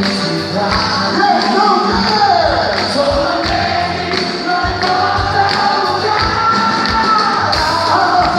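Loud music for a quadrilha junina dance, with singing over a steady beat and jingling percussion.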